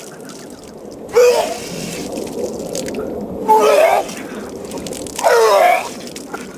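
A man retching out loud three times, each heave a strained vocal groan that falls in pitch, from drinking too much soda. Liquid drips and splashes between the heaves.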